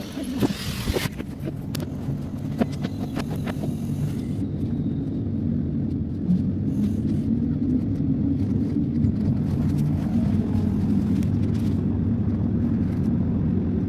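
Train running noise heard inside the driver's cab: a steady low rumble that grows slightly louder. A short burst of noise and a few clicks and knocks come in the first few seconds.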